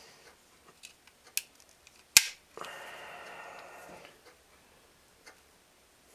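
Small clicks from handling a .50 caliber percussion black powder pistol, with one sharp click about two seconds in, followed by a second and a half of rubbing or scraping.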